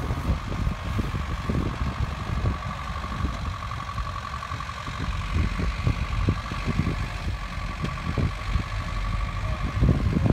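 Engines of off-road vehicles running as they tow a GAZ-66 truck out of a muddy pond by strap and cable, a continuous uneven low rumble with a steady whine above it.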